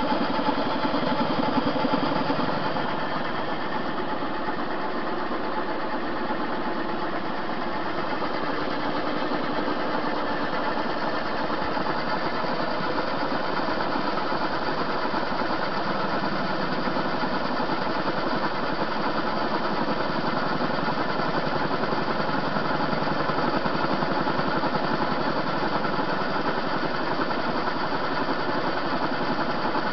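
TV-16 metal-turning lathe running steadily under power feed while it turns a blank: the hum and whine of its three-phase motor, run off single-phase through a capacitor, and of its gearing.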